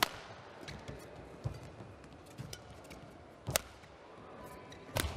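Badminton racket strings striking a shuttlecock: sharp single hits near the start, about three and a half seconds in and about five seconds in, with a few softer taps and faint ticks in between.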